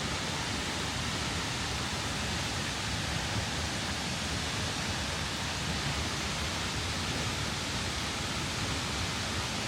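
Steady rushing roar of a waterfall, an even, unbroken noise.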